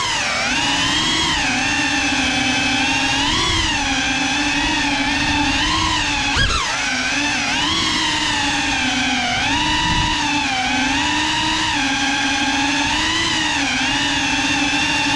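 GEPRC Cinelog 35 ducted cinewhoop drone in flight: the steady whine of its motors and propellers, its pitch rising and falling with the throttle. A brief knock about six and a half seconds in.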